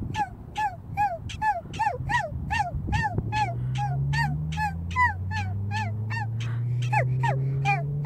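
Prairie dog barking over and over, short downward-sliding chirps at about three to four a second: the repeated bark prairie dogs give in alarm. A low hum slowly rising in pitch runs under it from about three seconds in.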